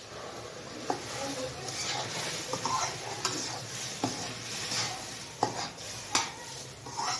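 Semolina roasted in ghee sizzling as hot water is worked into it, while a slotted metal ladle stirs and scrapes the metal kadai, knocking against it sharply several times.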